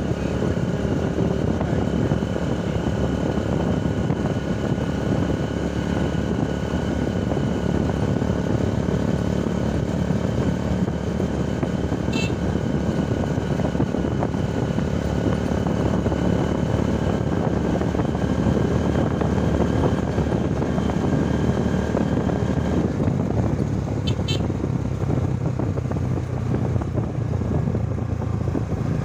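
Motorcycle tricycle running steadily at road speed, its engine noise mixed with road and wind rush. A faint high whine in the engine sound drops away about three-quarters of the way through.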